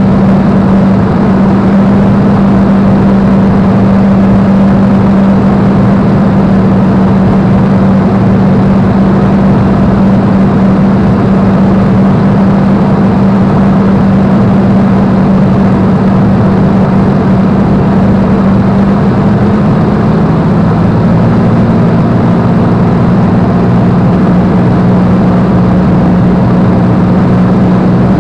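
Spitfire's V12 piston engine running steadily in cruise flight, heard from inside the cockpit with rushing airflow around it. Its note shifts slightly about two-thirds of the way through.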